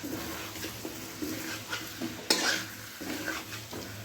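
A spatula stirring and scraping chicken in a spiced yogurt masala in a pan, with the masala sizzling as it fries down (bhuna). The spatula's strokes come again and again, and the loudest scrape falls a little past halfway.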